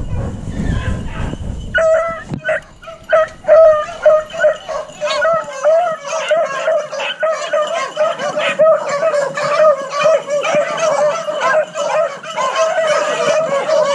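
Beagles baying on a rabbit's trail: rapid, repeated bawls, several overlapping, that start about two seconds in and keep on, the hounds in full cry running a cottontail. A low rumble comes before them.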